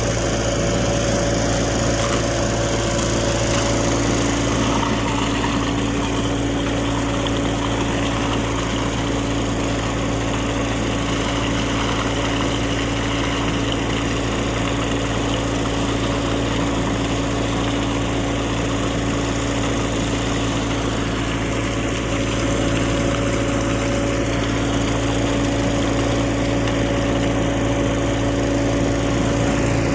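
Engine running steadily at a constant speed, an even hum with no revving.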